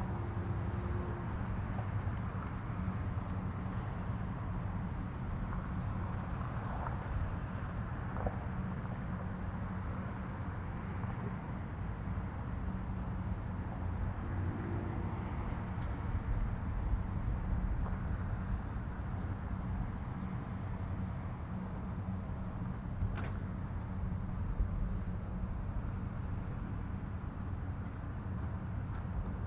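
Distant highway traffic: a steady low rumble and wash of vehicles passing far off, with no single vehicle standing out. A faint high trill runs over it.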